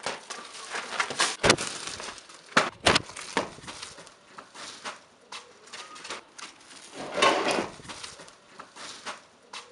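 A kite rustling and crackling as it is handled and run with, with a few sharp knocks and a longer rustle near the end.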